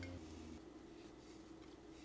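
Near silence: faint room tone with a steady low hum; the soft fried eggplant slices being laid in the glass dish make no distinct sound.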